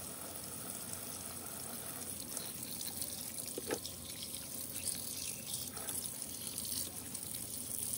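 Kitchen tap running steadily into a stainless steel sink, with two light knocks a little before and after halfway as the fish and knife are handled.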